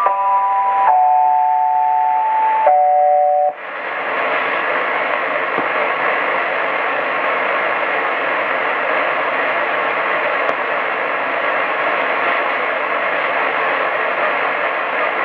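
Medium-wave AM radio reception: a sequence of steady electronic tones, several sounding at once and stepping to new pitches every second or so, cuts off abruptly about three and a half seconds in. What follows is steady, even receiver static, the sign that the transmitter has gone off air.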